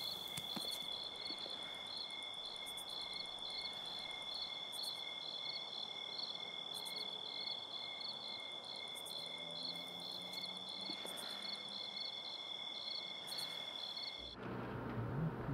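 Night insect chorus, crickets: a steady high trill with other insects chirping in regular pulses, a few times a second. It cuts off abruptly near the end, giving way to a low steady hum.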